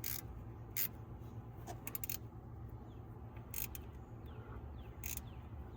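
A few scattered light metallic clicks from a wrench being worked on a valve cover bolt as it is tightened snug, over a steady low hum.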